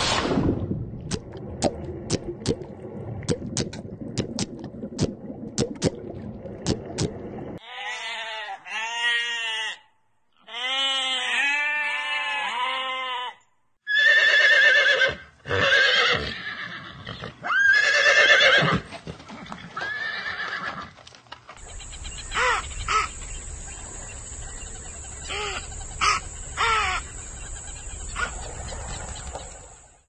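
A run of different animal calls. It opens with a loud burst, then sharp clicks over a low rumble, then two quick series of rising-and-falling calls. Horses whinny several times a little past the middle, followed by a steady high whine with scattered clicks and squeaks.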